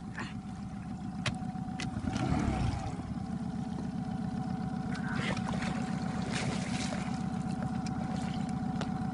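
A boat motor running steadily, with a few sharp knocks and a brief louder rumble about two seconds in.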